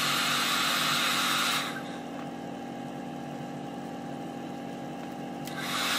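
Hair dryer with a diffuser attachment running on low airflow, a steady motor hum and rush of air, used for pixie diffusing curly hair. It drops and turns duller about two seconds in, then comes back up near the end.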